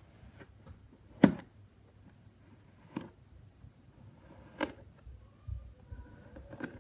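Kinetic sand being cut and pressed by hand with a knife on a tabletop: soft handling broken by four sharp knocks or taps. The loudest knock comes about a second in.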